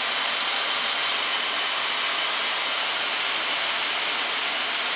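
Steady rushing noise on the flight deck of a Boeing 737-800 in flight on approach: air streaming over the nose and windscreens, mixed with the air-conditioning and equipment fans, with a faint high steady whine on top.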